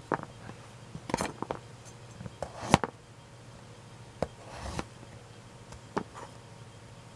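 Kitchen knife knocking and scraping on a thin plastic cutting sheet while carrot sticks are gathered and cut, a few irregular knocks with the sharpest a little under three seconds in and a short scrape later on.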